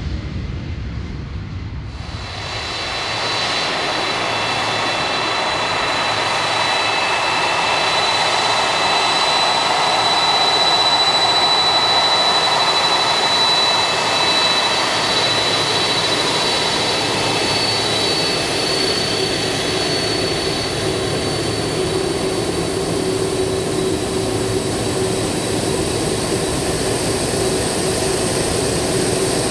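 Boeing 767 turbofan engines taxiing close by at low thrust: a steady jet whine with several high, steady tones over a broad rush. A lower steady tone joins about halfway through. It is preceded in the first two seconds by the low, distant rumble of a jet on its takeoff roll.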